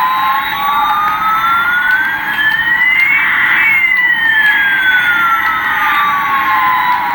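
Loud electronic siren-like sweep over a hiss: the tone rises slowly for about three and a half seconds, then falls back just as slowly, with a fainter second tone moving the opposite way and crossing it at the top.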